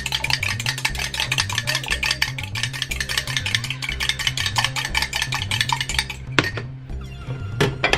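Eggs being beaten in a bowl, the utensil clicking rapidly against the bowl several times a second. The beating stops about six seconds in, and two separate knocks follow near the end.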